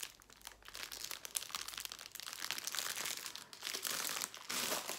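Clear plastic packaging crinkling as a shrink-wrapped pack of diamond-painting drill bags is handled: a dense run of small crackles, louder near the end.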